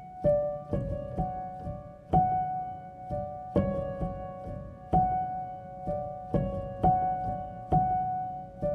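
Calm background piano music: single struck notes that ring and fade, a new note every half second to second.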